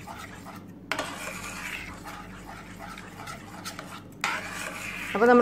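Metal spoon stirring thick white sauce in a steel saucepan, scraping against the pan.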